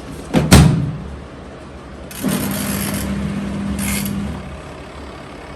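A sharp knock about half a second in, then the washing machine's motor hums steadily with a hiss for about two seconds before stopping.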